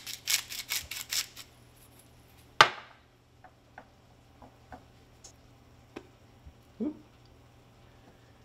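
Salt shaker shaken over a dish of flour, about six quick rattling shakes a second, stopping about a second and a half in. A single sharp knock follows, then a few faint taps and a soft thud.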